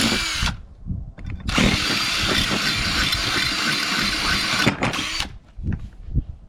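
Power drill with a 1/4-inch bit boring through aluminium angle: a short burst, then about a second and a half in a steady run of about three seconds, and a brief final burst.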